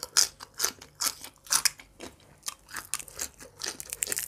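Raw water spinach (morning glory) stem being bitten and chewed, a quick run of crisp crunches, several a second.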